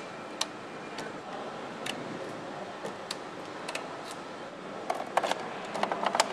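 Steady factory-floor hum with scattered sharp clicks, and a quick run of plastic-and-metal clicks near the end as parts are snapped into place by hand on a motorcycle assembly line.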